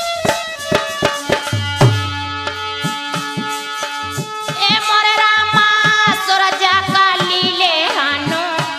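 Sohar folk song: a hand-drum beat under held instrumental chords, then a woman starts singing about halfway through, with the drum keeping time under her voice.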